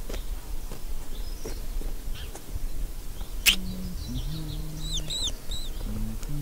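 Animated-film soundtrack: faint scattered high chirps, then a single sharp pop about halfway. After the pop, low held music notes begin, and a couple of quick high chirping tweets sound over them.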